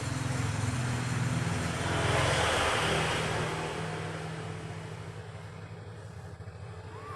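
A motor vehicle going by: a steady low engine hum under a rush of noise that swells to a peak about two and a half seconds in and then fades away.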